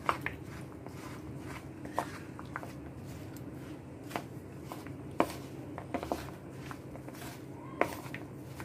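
A steel spoon stirring flour-coated raw peanuts in a bowl: soft dry scraping and shuffling, broken by irregular sharp clinks of the spoon against the bowl, over a steady low hum.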